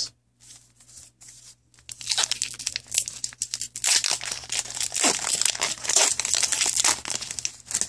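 A foil trading-card pack being torn open and its wrapper crinkled: a few light rustles, then dense crackling from about two seconds in until just before the end.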